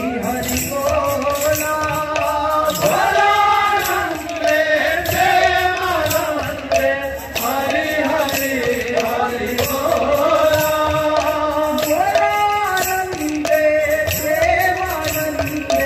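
Kirtan group of men singing a devotional chant in chorus, the melody rising and falling, with double-headed barrel drums (khol/mrudanga) and small hand cymbals keeping a steady rhythm.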